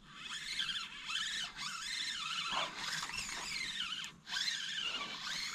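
Fishing reel being cranked to retrieve a topwater lure: a whirring that rises and falls in pitch with each turn of the handle, with two short pauses.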